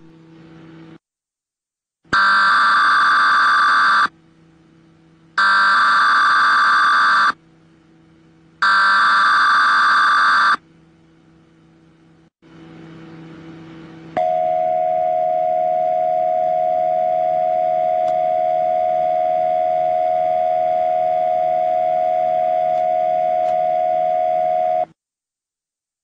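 Emergency Alert System data header: three harsh digital screeching bursts of about two seconds each. A few seconds later comes a loud, steady alert tone that holds for about ten seconds and then cuts off suddenly.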